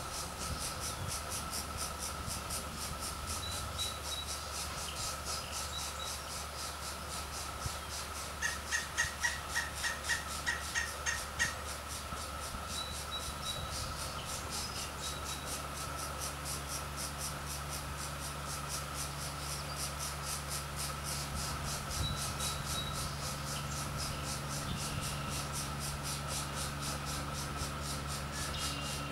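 A steady chorus of chirping insects, such as crickets, with a constant high trill throughout. Partway through comes a short series of about ten evenly spaced bird notes.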